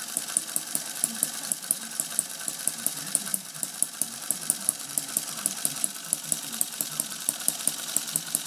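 Bob Shores 'Little Angel' model hit-and-miss engine, a tiny single-cylinder engine with a half-inch bore, running steadily with a fast, even run of sharp ticks. Its hit-and-miss governor is not connected, so it runs continuously instead of coasting between firings.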